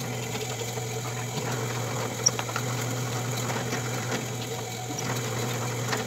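Drill press running steadily with a low, even hum as its bit bores holes into a small carved poplar swimbait body, with one sharp tick about two seconds in.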